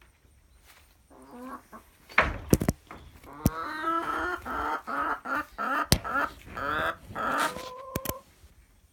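A flock of chickens clucking and squawking, many calls overlapping for several seconds starting about a second in, with a few sharp knocks among them.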